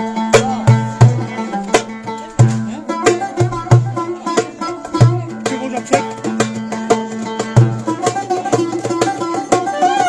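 Darbuka played by hand in a quick, steady rhythm of deep strokes and sharp rim taps, with a banjo plucking a tune over it.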